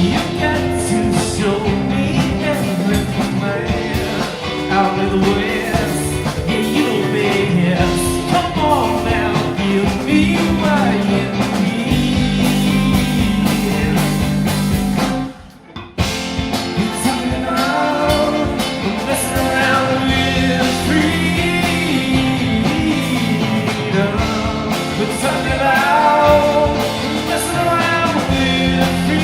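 A rock band playing, with a singer and electric guitar. The music breaks off for a moment about halfway through, then starts again.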